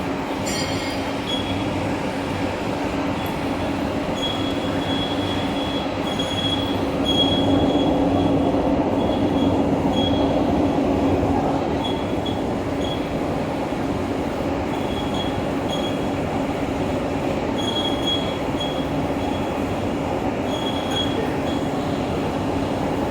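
Large vertical lathe running and cutting metal: a steady low hum under a constant machine noise, with short high-pitched squeals coming and going, a little louder for a few seconds in the middle.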